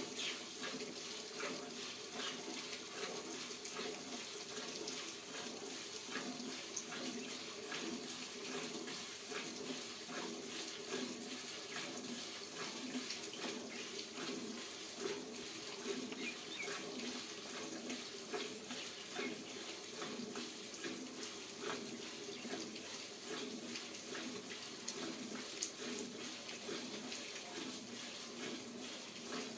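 Milk streaming and splashing into a pail as a Murrah buffalo is milked, a steady run of quick, irregular spurts.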